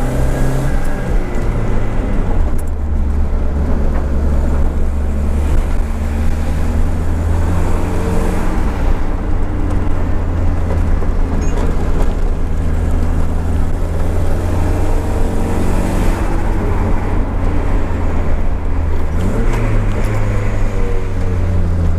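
Nissan 200SX S13's CA18DET 1.8-litre turbocharged four-cylinder running steadily under way. Its pitch drops about a second and a half in and rises again near the end.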